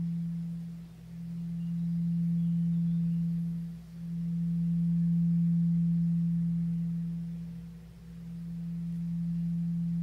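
Tibetan singing bowl sounding a steady low hum on E (MI, 164 Hz). It swells and fades in slow waves about every three to four seconds.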